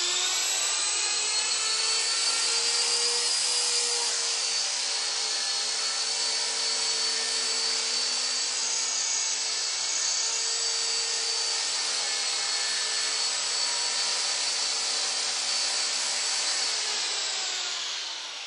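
An Esky Honey Bee King V3 RC helicopter's electric motors and spinning rotor blades give a steady high-pitched whine. Near the end the whine falls in pitch and fades as it spools down.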